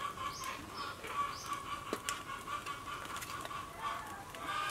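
Chickens clucking and small birds chirping, with a few light clicks.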